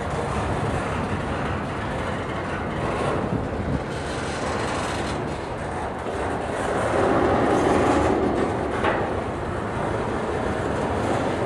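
Double-stack intermodal well cars rolling past: a steady rumble and rattle of steel wheels on rail. It grows louder for a second or so about seven seconds in, with one sharp clank near the nine-second mark.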